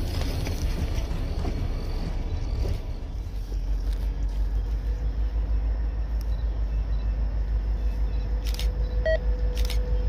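Background music ending in the first few seconds, then the low, pulsing rumble of a CSX four-axle diesel locomotive approaching from a distance.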